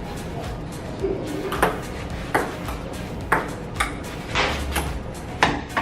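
Ping pong ball clicking off paddles and the table in a rally: about six sharp, quick clicks, starting about a second and a half in and spaced unevenly.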